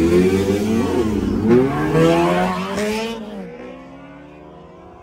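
Inline-four sport motorcycle engines with SC Project aftermarket exhausts accelerating hard. The pitch climbs, drops briefly at a gear change about a second in and climbs again, then falls and fades away from about three seconds in.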